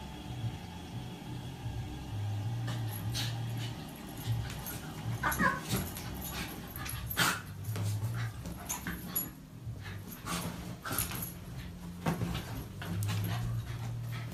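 A small dog making play noises while tussling with a cat: low stretches that come and go, short yips and a brief whine, among scuffling sounds.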